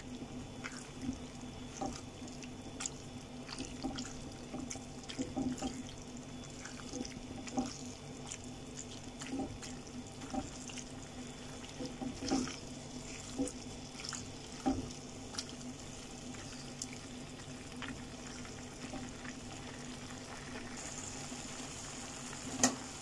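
A spatula stirring and folding fettuccine and chicken through a thick, creamy sauce in a nonstick pan: irregular wet squelches and soft taps against the pan, over a steady low hum. The stirring thins out after about two-thirds of the way; a faint hiss rises near the end, followed by one sharp tap.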